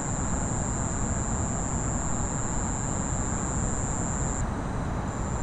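Night-time outdoor ambience: a steady low rumble of distant traffic, with a continuous high, thin whine over it that drops out briefly about four and a half seconds in.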